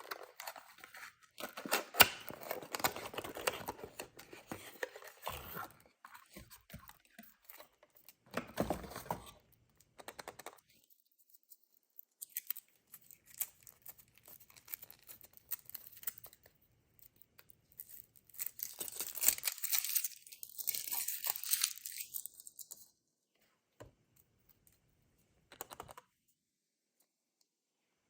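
A Kinder Surprise egg's foil wrapper being torn open and crinkled, in several bursts of rustling with pauses and small clicks between.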